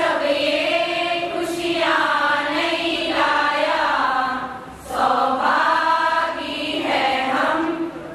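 A group of women singing a Jain devotional song (geetika) together in unison, in long held phrases, with a short break for breath about four and a half seconds in.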